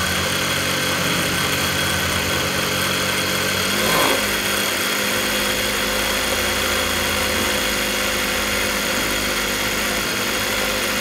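Juki DDL-8100E industrial lockstitch sewing machine running steadily on its servo motor while winding a bobbin: a steady mechanical whir, with a brief shift in pitch about four seconds in.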